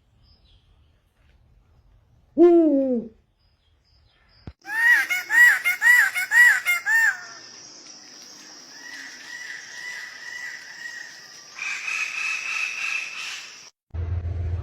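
Birds calling in a string of short clips. First comes one low call that falls in pitch, then five quick repeated calls, then fainter repeated notes over a steady high hiss.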